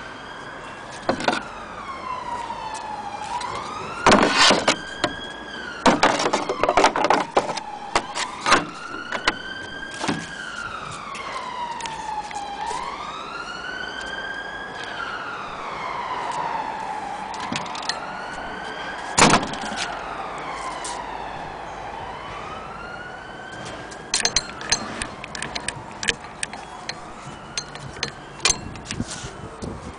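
A wailing emergency-vehicle siren, its pitch slowly rising and falling about every four to five seconds and growing fainter near the end. Scattered sharp clicks and knocks sound over it, the loudest about four, six and nineteen seconds in.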